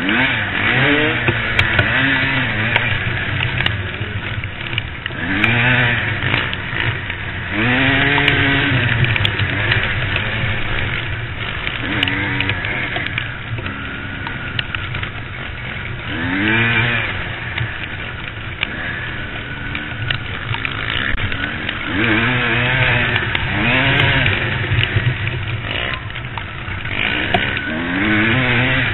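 Dirt bike engines revving, the pitch rising and falling again and again as the throttle is opened and closed.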